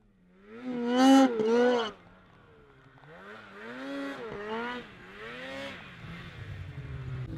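Snowmobile engine revving as the sled carves through deep powder: a loud rise and fall of throttle about a second in, then after a short lull several shorter swells of revs that rise and drop in pitch.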